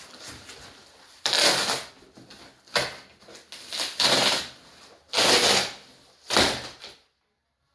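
Plastic wrapping on a vacuum-sealed mattress crinkling in about six short bursts as it is pressed and handled. The sound drops to total silence shortly before the end.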